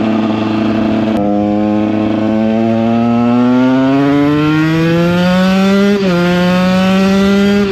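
2014 KTM 125 EXC's single-cylinder two-stroke engine under way. It holds steady, then climbs in revs over about five seconds, drops sharply at an upshift about six seconds in, and holds steady again. It pulls cleanly without stutter after a carburettor clean-out and a fouled, over-rich spark plug were dealt with.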